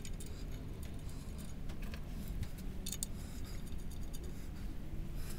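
Light metal clinks and ticks of clutch pressure-plate bolts being handled and the pressure plate being positioned on the flywheel, a few sharp ones spread through, over a steady low hum.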